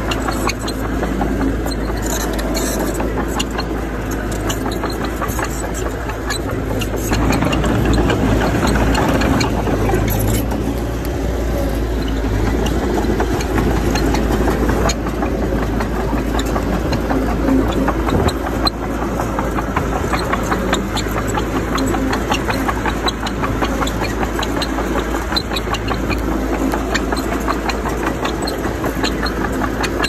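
Bulldozer's diesel engine running steadily under work, growing louder about seven seconds in for ten seconds or so before easing back.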